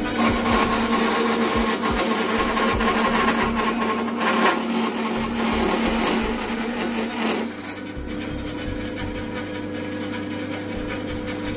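Bandsaw running with a steady hum, its blade cutting through a wooden block, louder for the first seven and a half seconds or so, then quieter as the blade runs on with little or no wood in it.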